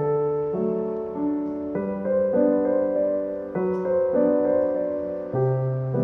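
Background piano music playing slow, sustained chords that change every second or two.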